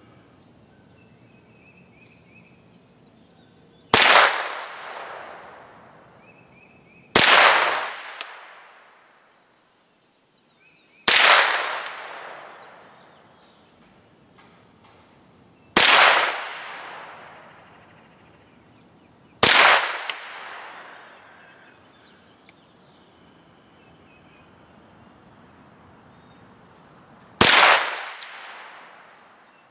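Henry AR-7 .22 LR semi-automatic survival rifle fired six times at uneven gaps of roughly three to eight seconds. Each sharp crack trails off in an echo over a second or two.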